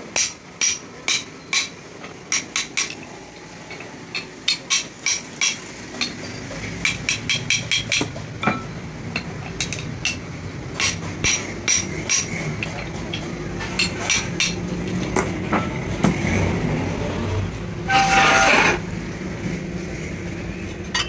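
Hand hammer tapping a steel part, with sharp metallic strikes that ring, coming in quick runs of two or three a second with short pauses between. A harsh rasping clatter lasts under a second near the end.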